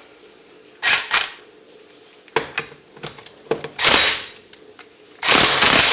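Impact gun with a 19 mm socket loosening wheel lug nuts in short bursts: a quick double burst about a second in, another near four seconds, and a longer one near the end, with a few clicks of the socket in between.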